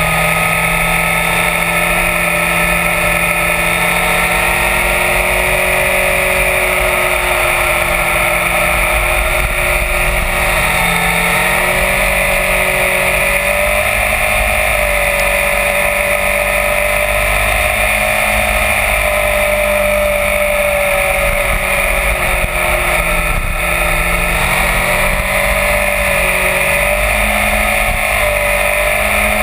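Sport motorcycle being ridden through curves, its engine running at steady speed with the pitch rising and falling gently as the throttle is worked. Heavy wind rush on the microphone and tyre noise run under it.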